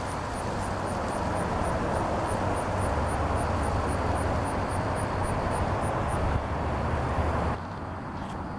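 Steady low engine drone, like a distant aircraft or traffic, with a faint high ticking repeating about four times a second that stops about six seconds in. The drone drops off suddenly near the end.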